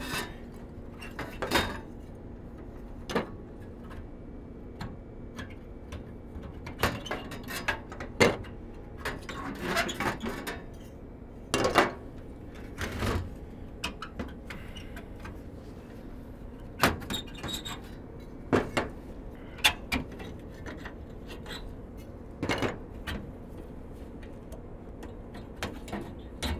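Rusty sheet-metal gas burner tubes from a Lennox burner assembly being pulled out and handled, giving irregular metal clinks and clanks over a steady low hum.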